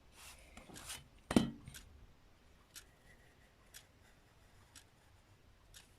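Drawing on paper: short scratchy strokes and light ticks from a drawing tool, with one louder tap or knock about a second and a half in.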